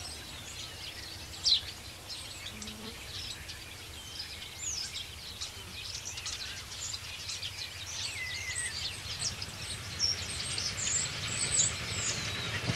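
Small wild birds chirping and twittering, many quick high calls that grow busier in the second half, with one sharp loud note about a second and a half in, over a steady low outdoor rumble.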